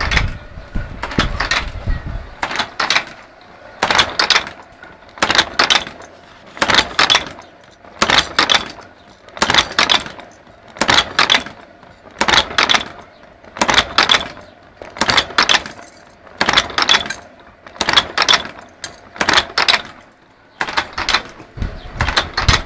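Cam-driven wire forming machine making C hooks, running at a steady pace with a burst of metal clanking about every second and a half, one per forming cycle.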